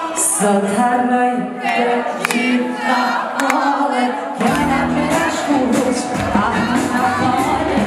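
Live band music with singing. The bass drops out shortly after the start and the full band comes back in about halfway through.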